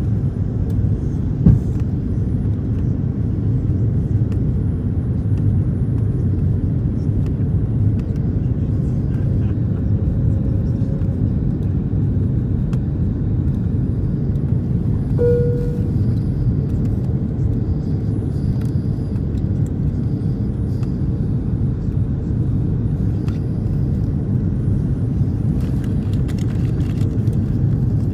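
Steady low rumble of cabin noise inside an Airbus A340 airliner on approach, from engine and airflow noise. A brief tone sounds about halfway through.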